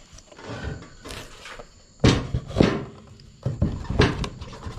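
Wooden knocks as notched, glued wooden leg pieces are knocked together at their joints: about five sharp thunks in the second half, after some lighter handling noise.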